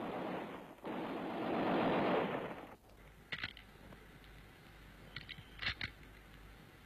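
Noise of a live-fire assault course, from TNT charges and machine-gun fire: a loud, even rush that swells and cuts off abruptly under three seconds in. It is followed by a few isolated sharp cracks of machine-gun fire, the last two close together.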